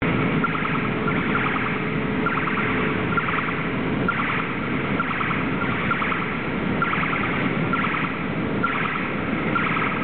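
Automated guided vehicle with a paper roll clamp driving, its warning signal repeating about once a second over the steady running noise of the vehicle.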